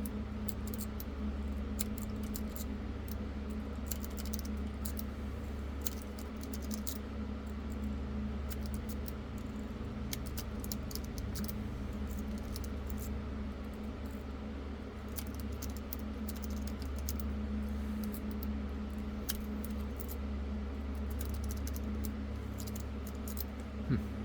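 Metal lock-pick rake scraping and clicking over the pin tumblers inside a Master Lock padlock: an irregular run of light metallic ticks and rattles, with one louder click near the end. A steady low hum runs underneath.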